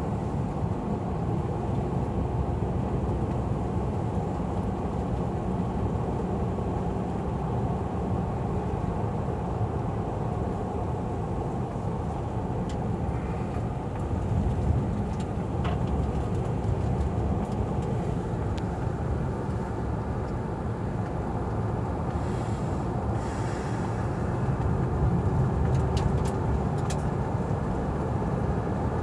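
Car driving slowly along a narrow asphalt path: a steady low rumble of engine and tyres, with a few light clicks about halfway and near the end.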